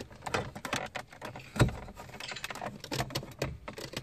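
Scattered clicks and taps of a Torx screwdriver and fingers working against the metal radio cage and plastic trim in a car dashboard's head-unit slot, with one louder knock about a second and a half in.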